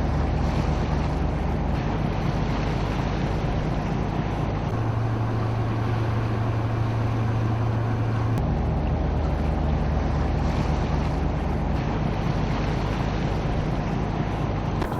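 Vessel's engine running with a steady low hum over wind and water noise. The hum's pitch changes abruptly about five and eight seconds in.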